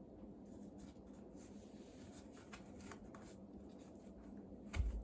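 Hemp rope being wound around a cat scratching post: faint scratchy rustling of the rope with small clicks, and a low thump near the end.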